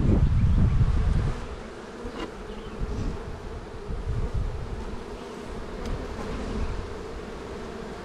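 Many honeybees on a brood frame lifted from an open hive, buzzing in a steady hum. A loud low rumble covers the first second or so.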